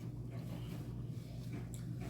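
Faint wet chewing and lip-smacking of someone eating boiled shrimp, with a small click about 1.7 s in, over a low steady hum.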